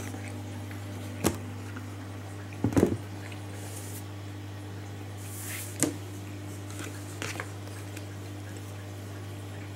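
A few short clicks and knocks from wooden chopsticks and a plastic food tray being handled on a metal-topped table, the loudest a quick cluster of knocks about three seconds in, over a steady low hum.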